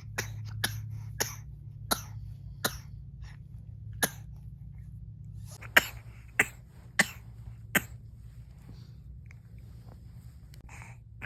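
A baby girl fake-coughing: about ten short, sharp coughs in two runs with a pause in the middle, the later ones louder. A low steady hum lies underneath.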